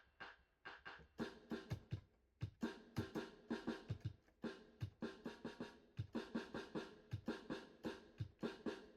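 Instrumental music with a steady drum beat: quick, even drum hits with deep kick thumps under a pitched loop, with no vocals.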